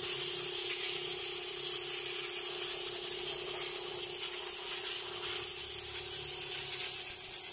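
Compressed air hissing steadily from an air blow gun, with the steady hum of the running air compressor underneath; the hiss stops at the very end.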